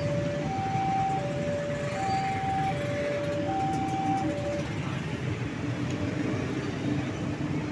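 Electronic railway level-crossing alarm sounding two alternating tones, high then low, each about three-quarters of a second long. It stops about four and a half seconds in, leaving a steady low rumble of engines.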